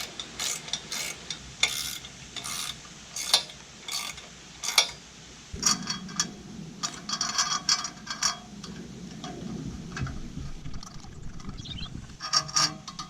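Hand ratchet tool being worked, giving quick runs of sharp clicks with some rubbing between them, in short bursts.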